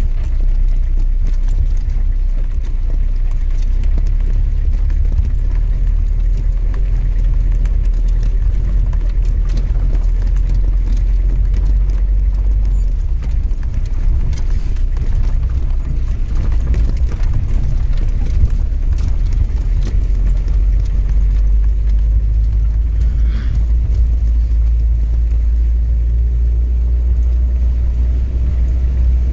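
Off-road jeep's engine running steadily under a low rumble, heard from inside the cabin, with the body knocking and rattling repeatedly as it drives over a rough, muddy track. The low engine note eases for several seconds about halfway and then builds again.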